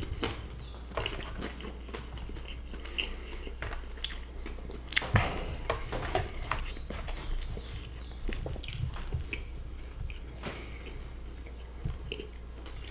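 Close-miked chewing and biting: two people eating cheddar-and-bacon fries, with irregular mouth clicks and crunches and a louder bite about five seconds in.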